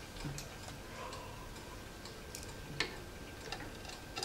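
A screw being driven into the metal drive bay of a PC case, giving scattered small clicks and ticks at irregular spacing.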